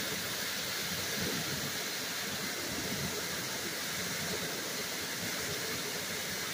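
Steady rushing noise, even from low to high pitch, with no separate events in it.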